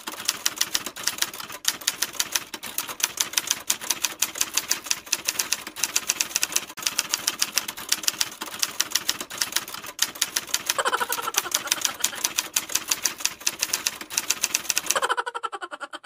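Rapid, evenly spaced clicking, about five clicks a second, like typewriter keys, with a short ringing tone about eleven seconds in; the clicking stops near the end.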